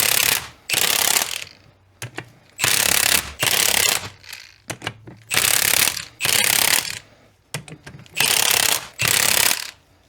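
Ratchet wrench clicking through repeated back-and-forth strokes, about eight strokes, as ring-gear bolts are tightened onto a differential carrier.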